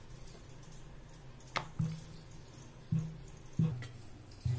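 Wooden rolling pin rolling out layered dough on a stone rolling board, with about five short knocks as the pin is pushed back and forth, from about a second and a half in.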